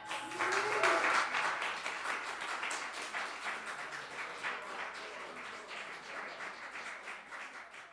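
Audience applauding, with a short voice cheer near the start; the clapping is loudest about a second in and slowly dies down.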